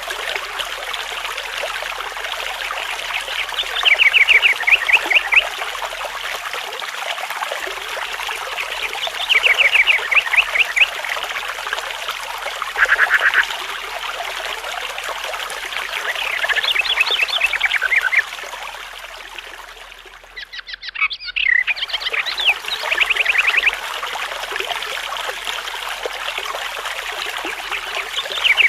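Outdoor nature ambience: a steady hiss under short, rapid trilled animal calls that repeat every few seconds. About two-thirds of the way through the background fades away briefly, then returns with another run of calls.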